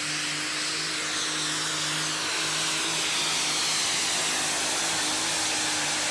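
Super stock pulling tractor's turbocharged diesel engine running flat out under load while it drags the weight-transfer sled, a loud, steady sound with a faint high whine that slowly falls in pitch.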